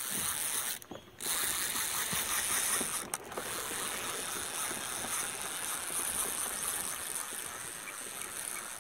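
Small inner-spool spinning reel giving a rapid, steady ratcheting clicking while a hooked fish is played on light line, with a short break about a second in.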